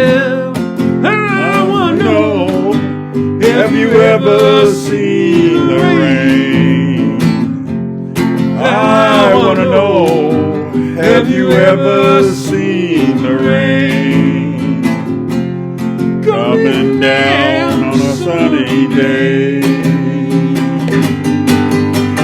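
Acoustic guitar strummed in a steady rhythm, with a sung melody line in phrases over the chords.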